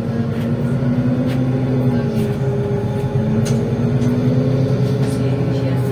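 NefAZ 5299 city bus engine running as the bus pulls away from a stop, heard from inside the passenger cabin; its steady hum breaks off briefly about two seconds in, with scattered clicks and rattles from the bus body.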